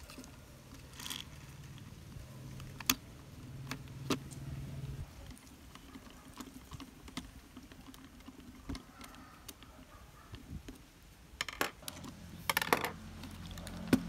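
Small plastic RC car parts clicking and tapping as they are handled and screwed together with a screwdriver on a wooden bench. The clicks are scattered, with a quick cluster of rattling clicks near the end.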